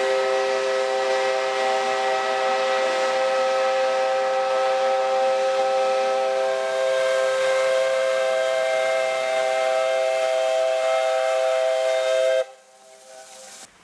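Narrow-gauge steam locomotive's whistle blowing one long, steady blast that sounds several notes at once, over the hiss of venting steam. It cuts off sharply about twelve seconds in, leaving a brief faint hiss.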